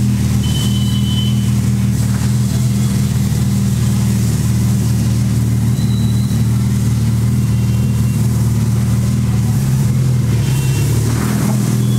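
Suzuki Hayabusa's 1340 cc inline-four engine idling steadily, an even low hum.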